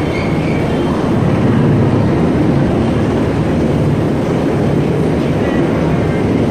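Coast Guard rescue helicopter hovering overhead: loud, steady rotor and engine noise with a fast, even chop.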